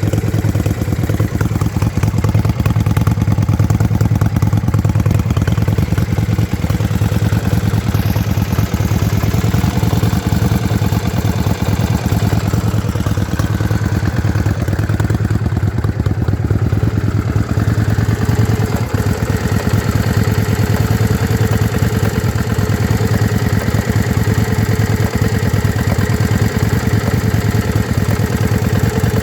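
Yamaha Virago XV535's air-cooled V-twin engine running steadily at idle with a misfire. One spark plug is heavily carbon-fouled, which the owner suspects comes from the carburettor tuning.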